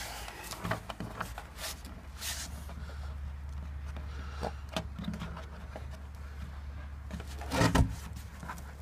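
Handling noise from a large blue plastic barrel being tilted and turned on paving: scattered light knocks and rubbing, with a louder clatter near the end, over a steady low rumble.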